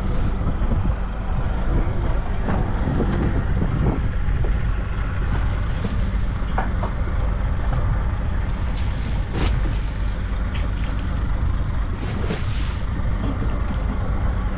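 Mechanised fishing boat's engine running steadily, with wind on the microphone and a few brief knocks.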